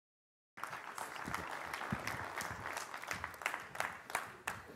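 Audience applause made of many overlapping handclaps, cutting in suddenly about half a second in and thinning out near the end.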